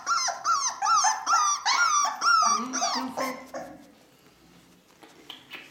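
Four-week-old Ca de Bou puppy whining in a run of repeated high-pitched cries, about two a second, that stop about three and a half seconds in. Faint quick ticking follows near the end.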